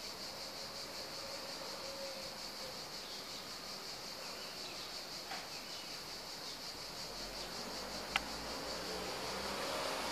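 Steady, high-pitched chirring of insects with a fine, even pulse. A single sharp click comes about eight seconds in.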